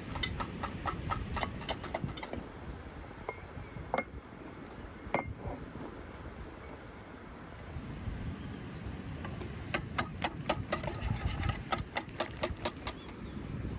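A metal utensil clicking rapidly against a dish in two quick spells, with a couple of single ringing clinks in between, over a low steady rumble.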